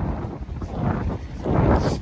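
Strong wind buffeting the microphone: a low rumbling noise that comes in gusts and swells louder near the end.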